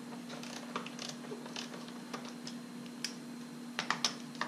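Hand socket ratchet clicking in scattered, uneven strokes as a 13 mm bolt is backed out, with a few sharper metal clinks of the tool near the end.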